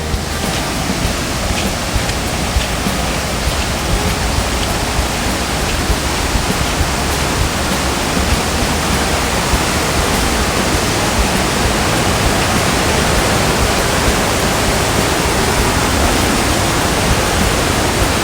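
O-daru waterfall's falling water making a loud, steady, even rush, growing slightly louder as it goes.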